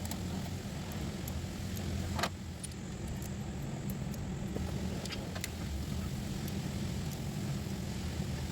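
Metal tools clinking and tapping on car parts: scattered sharp clicks, the loudest a little over two seconds in, over a steady low hum.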